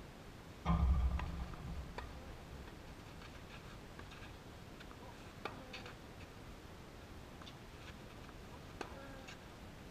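A dull low thump about a second in, the loudest sound, fading over a second, then a few faint sharp taps spaced seconds apart over quiet outdoor background noise.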